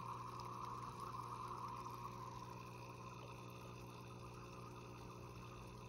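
Goldfish tank's water filter running: a steady trickle of water over a low steady hum.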